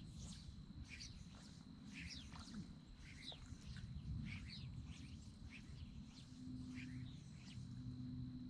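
Small birds chirping, short, high, falling chirps at about two a second, faint over a low steady background hiss and a thin steady high tone.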